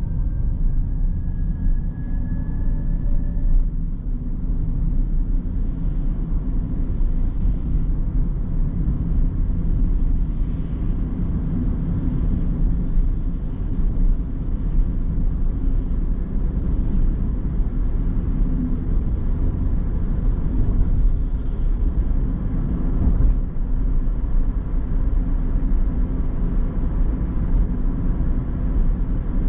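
Car driving on the road: a steady low rumble of tyres and engine. A faint, slightly rising whine sounds in the first few seconds.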